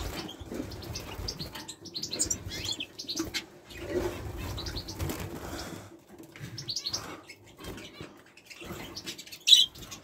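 Small aviary birds chirping in many short high calls, with fluttering wings and the rumble of the phone being handled. A sharp click near the end is the loudest sound.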